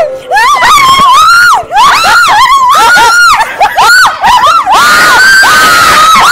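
Several people screaming in fright: high-pitched shrieks that rise and fall almost without a break, with more voices overlapping near the end.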